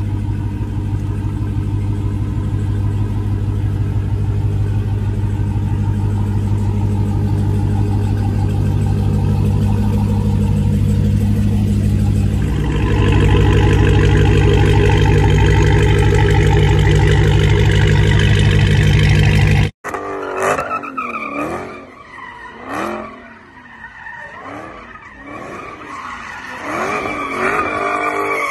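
Dodge Charger SRT's V8 idling with a steady, deep exhaust note, which steps up louder about halfway through. After an abrupt cut, tyres squeal and the engine revs as a car spins donuts.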